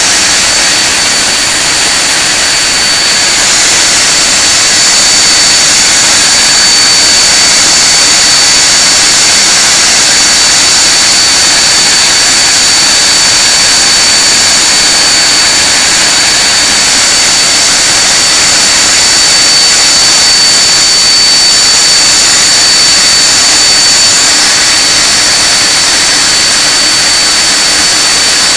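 Handley Page Victor K2's Rolls-Royce Conway turbofan engines running on a ground run: a loud, steady jet rush with a steady high-pitched whine over it.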